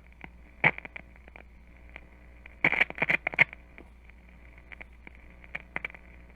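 Scattered sharp clicks and crackles over a low steady hum, with one loud click about a second in and a quick run of louder clicks around the middle.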